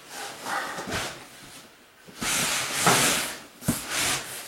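A cardboard moving box being handled: a long rough scraping rush about two seconds in, then a sharp knock.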